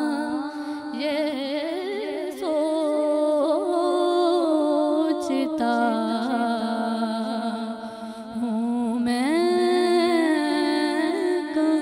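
A woman reciting a naat (devotional Urdu poem in praise of the Prophet), sung into a microphone with long held notes and ornamented slides between pitches. There is a brief pause about eight seconds in, then a phrase that rises in pitch.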